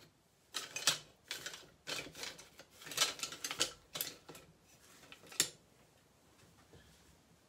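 A run of light clicks and rattling clatter from small hard objects, in quick irregular strokes for about five seconds, then it stops.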